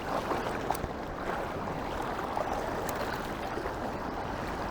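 Mountain stream rushing steadily, with a few faint ticks in the first three seconds.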